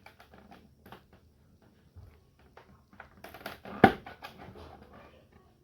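Plastic side cover of an HP LaserJet 1020 printer being pried off by hand: light plastic clicks and rattles, with one sharp snap a little before four seconds in as a retaining clip lets go.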